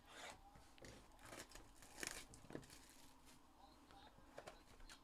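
Faint crinkling and tearing of plastic shrink wrap being stripped by hand from a sealed trading-card hobby box, with light taps and scrapes of the cardboard, the loudest rustle about two seconds in.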